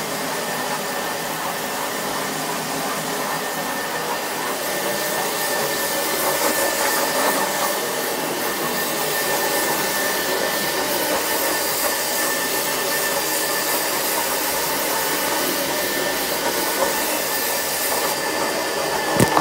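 Rotovac rotary carpet extraction machine running steadily: its vacuum makes a loud, even rushing noise with a faint whine in it. The noise gets a little louder and harsher about five seconds in.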